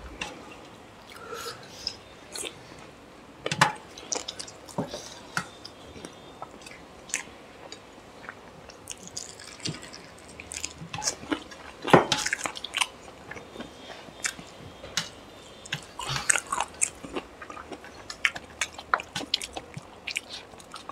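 Close-up eating sounds of chicken curry and rice eaten by hand: wet chewing, lip smacks and squelches of fingers working curry-soaked rice on steel plates. Scattered sharp clicks and smacks come throughout, the loudest about twelve seconds in.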